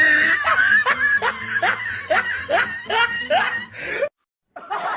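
Laughter in a quick series of short rising 'ha' sounds, cut off suddenly about four seconds in.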